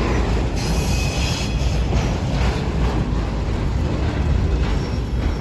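The last cars of train M453 rolling past with a steady rumble of wheels on rail. Some higher-pitched rail noise comes through from about half a second to one and a half seconds in.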